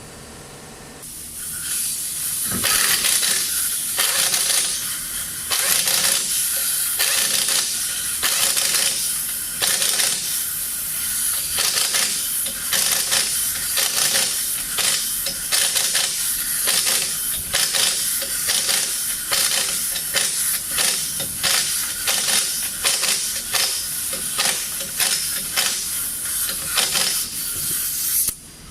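Pneumatic impact wrench running in many short trigger bursts with a loud hiss of exhaust air, tightening a wheel's lug nuts. It starts about a second in and cuts off just before the end.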